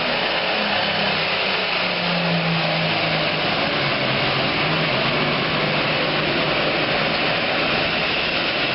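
Super Farm pulling tractor's diesel engine running flat out under load during a pull, a loud, steady noise whose low note sinks slowly as the engine is pulled down.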